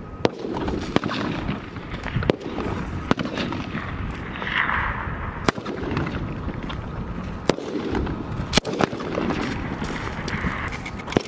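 Gunfire on a military rifle range: about nine sharp single cracks at uneven intervals of roughly one to two seconds, two of them close together, over a steady background rush.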